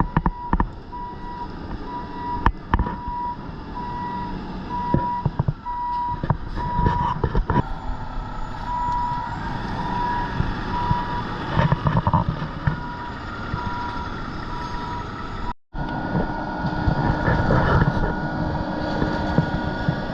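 Concrete mixer truck's engine running while its reversing alarm beeps at a steady pace, the beeping stopping about nine seconds in; scattered clicks and knocks sound over the engine noise.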